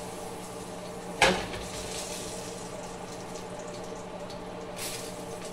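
Small banana pancakes sizzling in a skillet on a gas stove, over a steady low hum. About a second in, a sharp metal clank as the skillet is set back down on the burner grate, and a brief louder hiss near the end.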